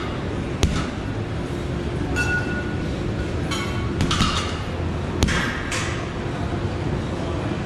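Fortress boxing gloves punching a hanging heavy bag several times: dull thuds, two of them sharp, with metallic clinks mixed in, over a steady gym background hum.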